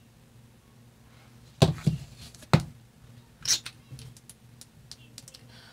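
Liquid lipstick tube and wand being capped and put down: two sharp clicks about a second apart, then a scattering of softer ticks.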